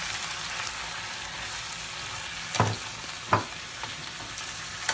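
Squid, onion and tomato sizzling in a frying pan with a steady hiss while being stirred with a wooden spatula, which knocks sharply against the pan twice around the middle.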